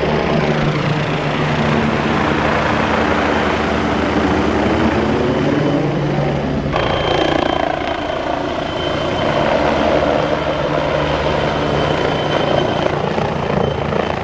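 Helicopter flying low overhead: a steady, loud rotor and engine sound, with an abrupt shift in the sound about seven seconds in.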